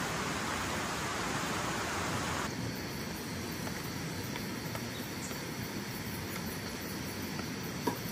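Steady hiss of heavy rain that cuts off abruptly about two and a half seconds in, leaving a quieter steady background hiss with a short click near the end.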